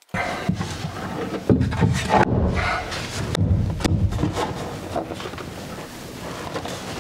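Wooden stair tread being set down on a freshly glued step and pushed and slid into place by hand: scraping and rubbing with scattered knocks, the loudest about a second and a half in.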